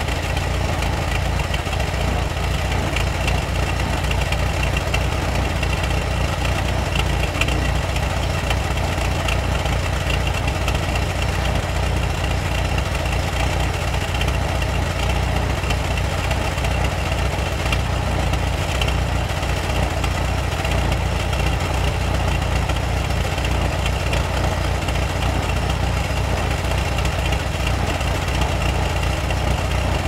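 Antique 1930s car engine idling steadily, a low even running sound with no revving or change in speed.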